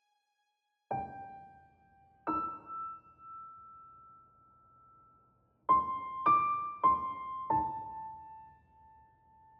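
Slow, sparse piano music: a single note about a second in and another a little over a second later, then four notes in quick succession, each left to ring out.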